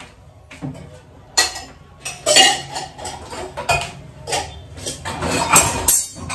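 Kitchen utensils and dishes clattering and clinking as they are handled and set down, in irregular separate knocks with a longer run of clatter near the end.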